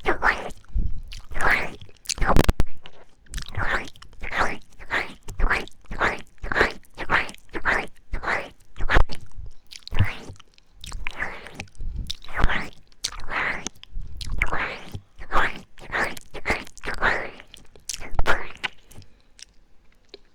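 Wet ASMR 'ear eating' mouth sounds: smacking and licking noises from a person's mouth and tongue, repeated about twice a second and stopping near the end.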